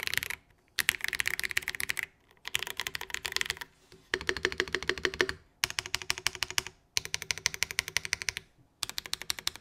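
Mode Sonnet custom mechanical keyboard with a polycarbonate plate in a stack mount, typed on quickly in runs of keystrokes of about a second each, broken by brief pauses. This is a typing sound test.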